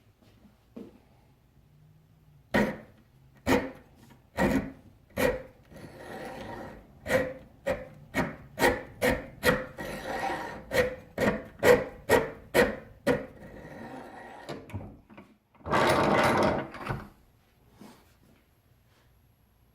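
Checkering file scraping across the steel spine of a Damascus knife blank to cut thumb jimping. It is a string of short, sharp strokes, slow at first and then about two a second, followed by one longer stroke near the end.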